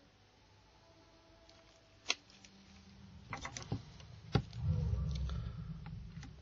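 Sharp plastic clicks as a plastic pry tool unsnaps the clips of a Sony Ericsson WT19i's rear housing frame: one, then a quick cluster, then a last loud snap. Then a low rustling rumble of gloved hands handling the loosened frame.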